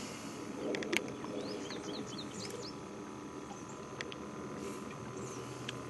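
A bird chirping in a quick run of short notes, over a steady low background hum, with a few sharp clicks.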